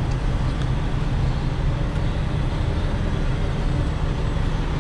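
Steady low rumble of truck engines and road traffic, with a constant hiss over it.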